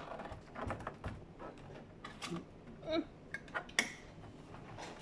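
Scattered plastic clicks and knocks from the panels of a Fuji Xerox DocuPrint CM225 printer being pried and pushed by hand to free their clips. The sharpest click comes about four seconds in.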